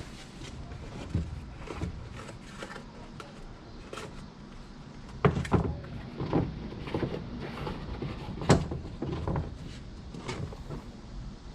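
Irregular knocks, taps and rustling handling noises from hands-on work on a shoe, the loudest knocks about 5 and 8.5 seconds in.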